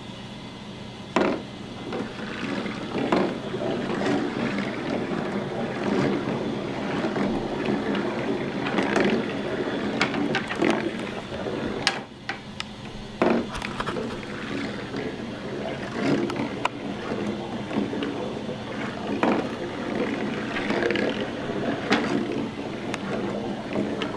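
Marbles rolling down the poster-board track of a balsa-wood marble roller coaster: a continuous rolling rumble broken by many sharp clicks and clacks, starting with a sharp click about a second in.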